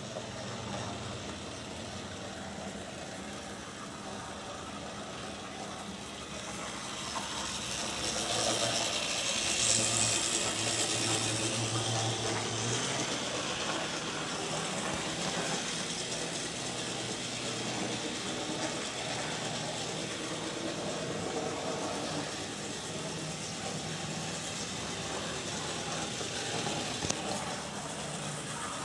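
HO-scale Tenshodo brass Southern Pacific 4-6-2 model steam locomotive running along the track, with the steady whirr of its small electric motor and gearing. It grows louder for several seconds about a third of the way in.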